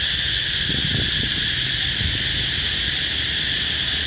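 A chorus of cicadas singing in roadside trees: a steady, high-pitched, unbroken drone.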